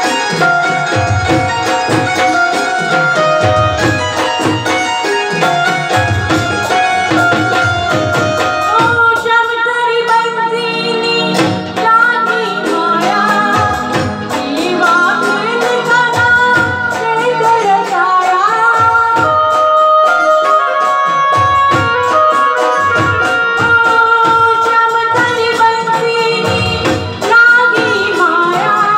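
Live band playing a Gujarati song: electronic keyboards and hand-drum rhythm, with a woman's voice singing the melody into a microphone from about twelve seconds in.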